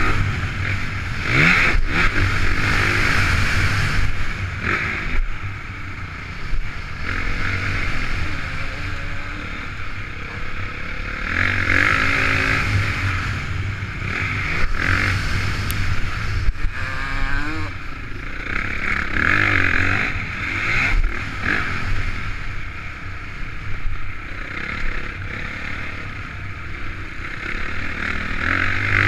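Honda CRF450 motocross bike's single-cylinder four-stroke engine running hard around a dirt track, the revs rising and falling every few seconds as the throttle is opened and shut.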